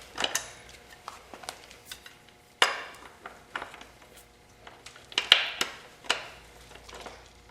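Metal tools clinking and clanking against the rear axle nut of a motocross bike as the loosened 27 mm nut is worked off, a few sharp knocks among lighter ticks.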